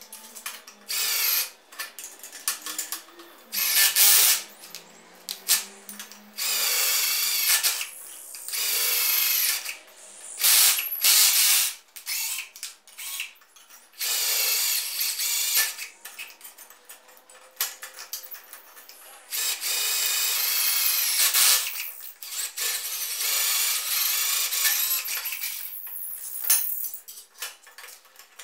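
Cordless drill boring holes through a thin steel plate. It runs in repeated bursts of one to a few seconds, with short pauses between them.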